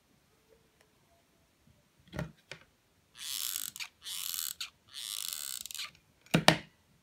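Hot glue gun in use: a couple of knocks as it is handled, then three scratchy hisses of about a second each while glue is squeezed out along the cord trim, and a loud knock near the end as the gun is set down on the table.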